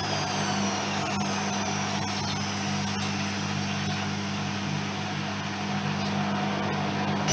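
Privileg 3020 front-loading washing machine running with a steady motor hum, its high whine falling in pitch during the first second or so.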